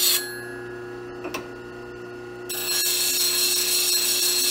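Rikon low-speed grinder running with a steady hum while a steel skew chisel is ground on its CBN wheel. The hissing grind stops just after the start as the tool is lifted off, a single click follows about a second and a half in, and the grind resumes about halfway through.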